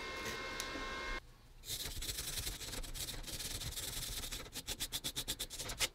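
A steady hiss with a few high tones stops about a second in. Then a hand file scrapes across the welded cast-iron vise body, dressing down the weld, and settles into quick, even strokes, several a second, near the end.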